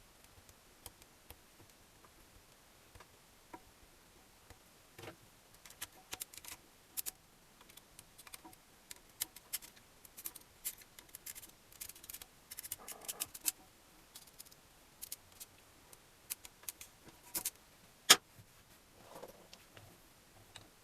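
Irregular light clicks and clinks of small metal parts and hand tools being handled during engine assembly, busiest in the middle, with one sharper click near the end.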